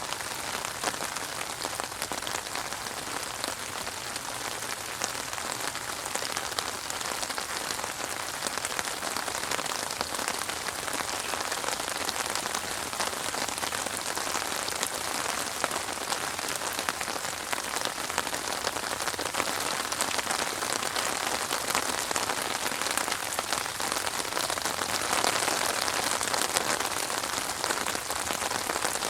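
Steady rain falling, a dense hiss of countless small drop hits, growing slightly heavier near the end.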